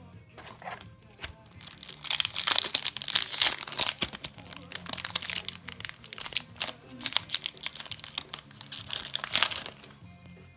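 Foil wrapper of a Yu-Gi-Oh! booster pack crinkling and tearing as the pack is torn open and handled, starting about two seconds in and stopping near the end.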